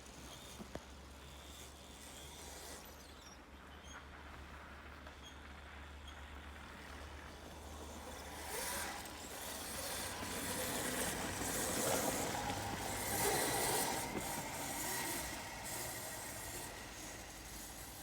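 Electric ATV on the move, its drive and tyres on snow making a steady noise with a faint whine. The noise grows louder from about eight seconds in and eases off near the end.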